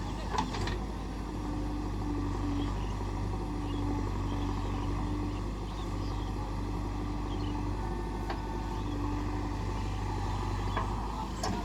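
A JCB backhoe loader's diesel engine runs steadily at work, with a higher whine that comes and goes and a few sharp clanks: near the start, about two-thirds of the way through, and near the end.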